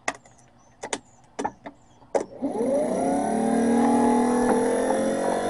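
Several sharp clicks as the jumper cable is touched to the starter's solenoid terminal. About two seconds in, the starter motor spins up with a whine that rises in pitch, then runs steadily. It is turning freely because its drive gear is not kicking forward to engage, which the owner takes for a bad starter.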